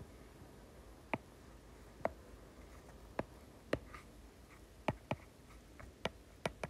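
Stylus tip tapping on a tablet's glass screen, about ten sharp ticks at irregular intervals.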